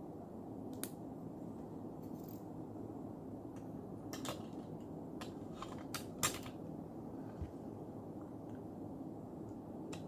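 Small parts of a Samsung Galaxy Grand Prime smartphone being handled and fitted back into its frame: scattered light clicks and taps, the sharpest a little past the middle, over a steady low hum.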